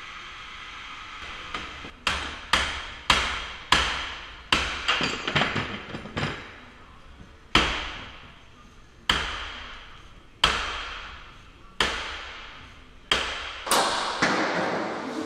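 Hammer blows on steel, driving steel wedges into the gap of a steel security door in a forced-entry attack. There are about a dozen sharp metallic strikes, each ringing out. They come quickly at first, then about every second and a half.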